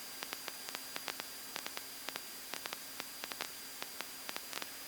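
Quiet hiss of the aircraft's headset intercom and radio feed between transmissions, with a faint steady hum, a thin high tone, and irregular faint clicks several times a second.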